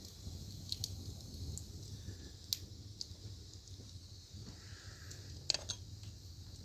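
Wood fire crackling in a fireplace: a few sharp pops, two of them close together about five and a half seconds in, over a low steady rumble.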